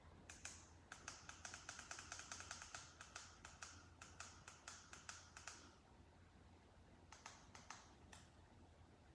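Faint plastic clicking of a handheld lamp remote's buttons being pressed in quick succession, about four or five presses a second, then a few more scattered presses near the end.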